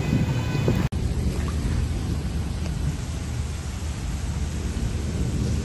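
Heavy rain falling steadily on a flooded street, an even hiss with a deep rumble underneath. The sound cuts out for an instant about a second in, then the rain goes on.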